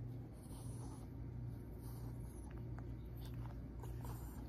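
A hand stroking and rubbing a puppy's fur, a soft scratchy rubbing with a few faint ticks, over a steady low hum.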